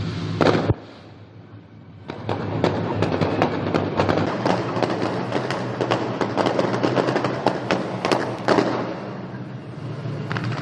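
Aerial fireworks going off: a loud bang near the start, then, after a short lull, a dense run of crackling bursts with many sharp cracks, and another loud bang about eight and a half seconds in.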